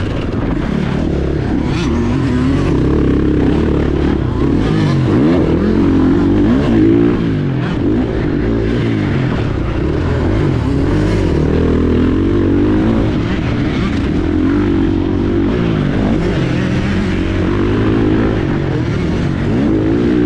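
KTM 450 SX-F's single-cylinder four-stroke engine revving hard and backing off over and over, its pitch climbing and dropping as the bike is ridden around a dirt motocross track, heard close up from a camera on the bike.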